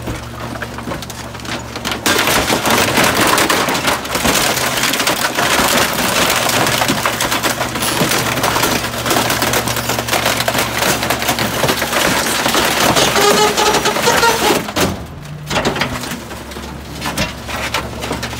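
Rear-loader garbage truck's packer blade crushing a large television cabinet and other bulky waste: a long stretch of dense cracking and splintering of wood and plastic over the truck's steady hum, with a rising creak shortly before the crunching stops. Only the steady hum of the truck's machinery is left near the end.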